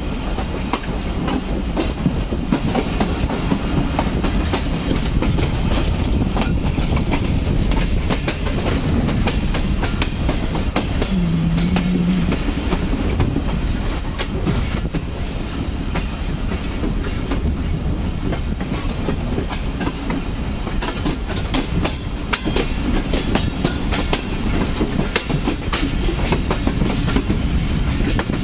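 Subak Raftar Express passenger train running at speed, a steady rumble with the clickety-clack of wheels over rail joints throughout. A brief low steady tone sounds about eleven seconds in.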